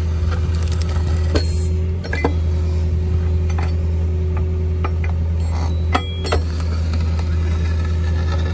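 Hydraulic pipe ram pushing steel pipe through the soil, its hydraulic power unit running with a steady low hum. A few sharp metal clanks are heard, one about a second and a half in, another just after two seconds, and two close together about six seconds in.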